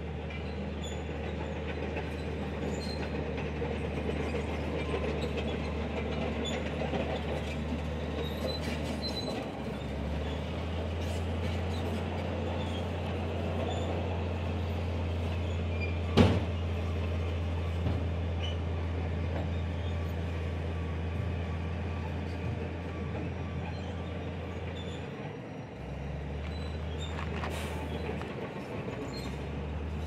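Komatsu bulldozer's diesel engine running steadily under load, with clattering from the working machine. The engine note dips briefly twice. There is one sharp knock about sixteen seconds in.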